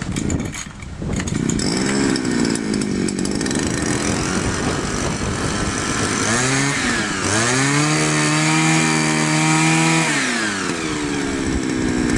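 Two-stroke engine of a Eurotek petrol grass trimmer starting about a second in and running, then revved up around six seconds in, held at high revs for a few seconds, dropped back to idle and revved again near the end. The trimmer that would not start now runs after a carburettor gasket, heat insulator and throttle handle repair.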